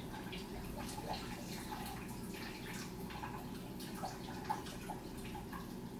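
Reptile-enclosure humidifier fogging the tank: a faint steady hum with scattered small drips and ticks of water.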